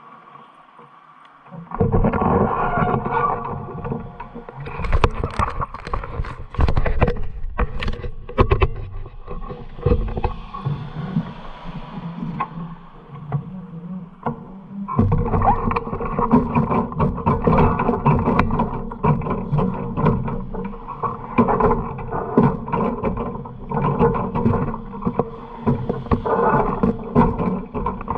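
Harley-Davidson V-twin motorcycle engine running loud. It cuts in suddenly about two seconds in, turns patchy with sharp crackles through the middle, and settles into a steady loud run from about halfway.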